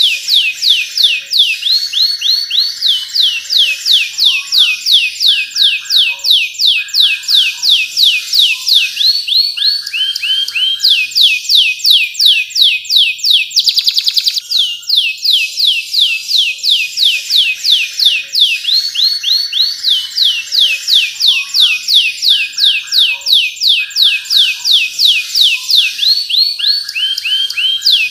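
Domestic canary singing a loud, continuous song of rapid downward-sweeping whistled notes, about five a second, with a brief fast buzzing trill about halfway through.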